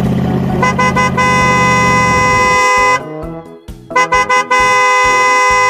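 Vehicle horn sound effect, two long honks of about two seconds each with a short gap between them. Under the first honk is a low engine rumble.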